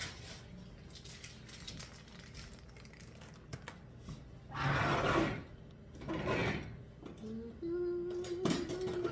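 Block of Parmesan being scraped by hand across a metal cheese grater: light scratchy strokes, then two louder rasping swells about five and six and a half seconds in. A short wavering, hum-like tone sounds near the end.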